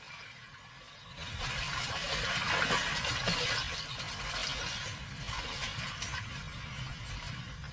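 Water splashing and sloshing as African buffalo wade through shallow water. It starts about a second in and is loudest soon after.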